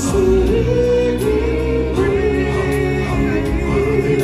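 Live stage-show music: a lead singer on a microphone with choir-style group vocals over the band.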